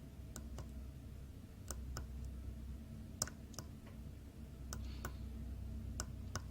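Tactile push-button on an opened car alarm key fob's circuit board clicking as it is pressed and released several times, the clicks coming in pairs a second or so apart. The button works only intermittently, which the owner puts down to its solder joints rather than the switch itself.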